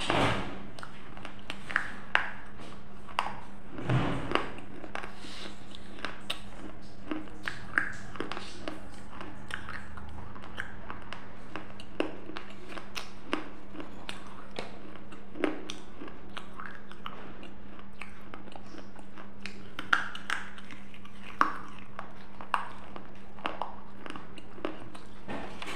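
Close crunching and chewing as a person bites into and chews pieces of baked clay lamp, picked up by a clip-on microphone. The sharp crunches come irregularly, a few seconds apart, over a steady low hum.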